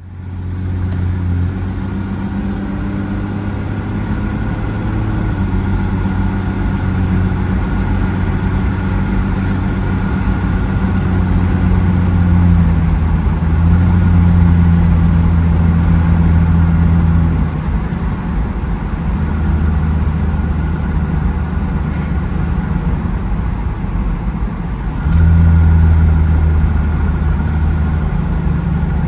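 A car being driven, heard from inside the cabin: a steady low engine drone over road noise. The drone steps up in level a couple of times and is loudest near the end.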